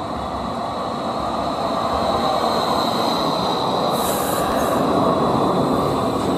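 Articulated light-rail tram passing close by, its running noise growing a little louder, with a steady high whine over the rumble and a short hiss about four seconds in.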